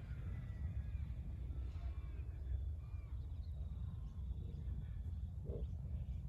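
Steady low rumble of wind on the microphone, with a few faint short chirps, likely birds.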